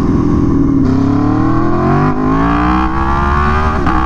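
Aprilia Tuono V4 1100 Factory's V4 engine, through an SC Project CR-T exhaust, pulling hard under full acceleration: the revs climb steadily from about a second in, then dip briefly near the end. This is a power-wheelie attempt with wheelie control on level 2, which the rider says kept cutting the power.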